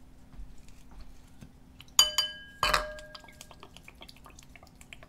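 A glass soy sauce bottle clinks twice against a small ceramic bowl about two seconds in, each clink ringing briefly, then soy sauce trickles and drips faintly into the bowl.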